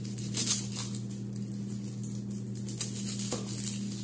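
Dry papery crackling and rustling as the skin is peeled and trimmed off a red onion with a small knife, a quick run of crisp ticks strongest in the first second, over a steady low hum.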